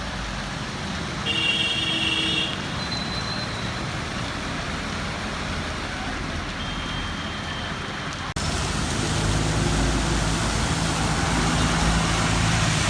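Road traffic noise, a steady hiss, with a vehicle horn sounding briefly a little over a second in. After an abrupt cut about two-thirds through, the noise is louder and a vehicle engine hums low.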